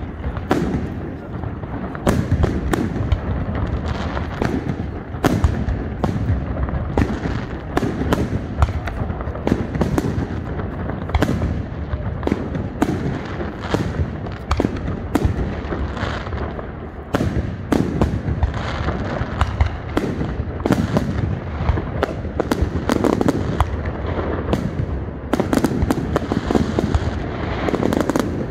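Fireworks display: a dense, continuous run of aerial shells bursting, sharp bangs following one another several times a second with crackling between them.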